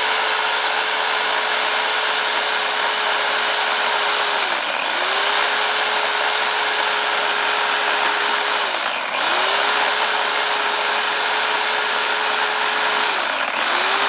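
Harbor Freight Portland electric chainsaw cutting down through a fallen pecan limb from the top, finishing a limb already cut from below. The motor runs steadily with the chain cutting through wood, its pitch dipping and picking up again three times, about every four and a half seconds.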